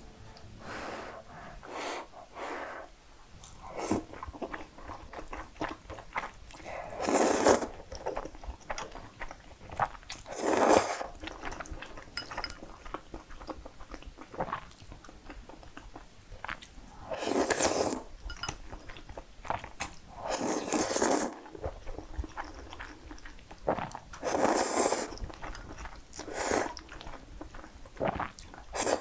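Close-miked eating of spaghetti in cream sauce: about five loud slurps of noodles, each about a second long, with soft wet chewing and smacking between them.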